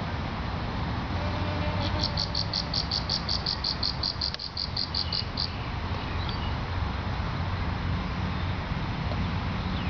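A rapid run of high, evenly spaced chirps, about six a second, starting about two seconds in and lasting around three and a half seconds, over a steady low background rumble.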